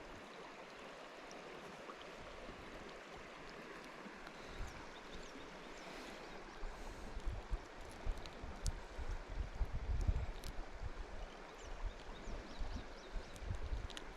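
Shallow river water running, a steady rush. From about halfway in, wind buffets the microphone in low, uneven gusts.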